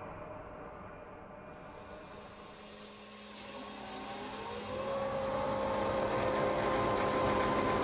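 Hensley Super Auger bulk feed trailer's hydraulic auger drive starting up for an unloading run: over a steady machine hum and hiss, a whine rises in pitch from about three and a half seconds in, then holds steady as the system comes up to pressure.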